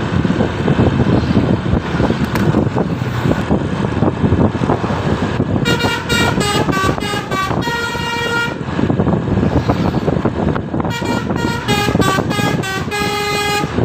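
Bus telolet horn, a Basuri multi-tone horn, playing two quick melodies of short changing notes, each ending on a longer held chord: the first about six seconds in, the second about eleven seconds in. Under it runs loud, steady engine and road noise.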